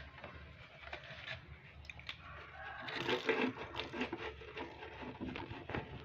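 Soap lather being worked by hand onto a freshly brazed copper refrigerant-pipe joint as a leak test: scattered small crackles and rustles, busiest about three seconds in.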